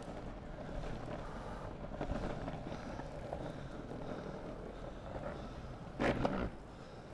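Longboard wheels rolling over block paving: a steady rumble and rattle. About six seconds in a louder clatter lasts about half a second.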